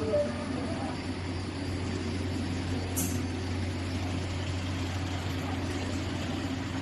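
Steady low hum of a running tunnel microwave thawing line and its conveyor, with a short high click about three seconds in.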